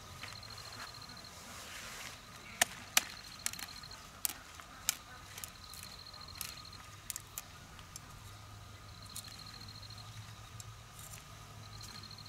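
Outdoor field ambience: an insect trills in short bursts about a second long, repeating roughly every three seconds over a faint steady high tone. A run of sharp snaps and clicks comes a few seconds in.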